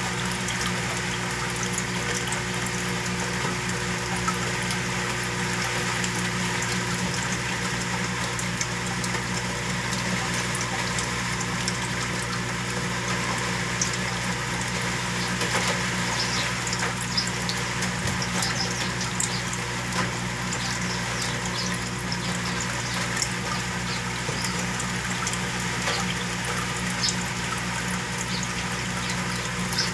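Saltwater aquarium's water circulation: moving, splashing water with a steady low pump hum and scattered small pops.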